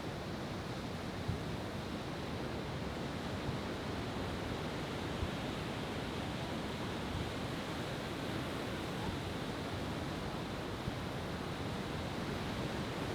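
Steady wash of sea waves breaking on the shore, with a couple of faint short thumps.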